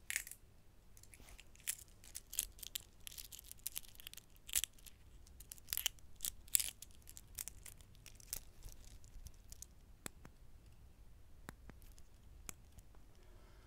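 Close-miked handling of a Bulova chronograph watch on a stainless steel link bracelet: irregular sharp clicks and light taps, several a second, thinning out to a few scattered clicks after about nine seconds.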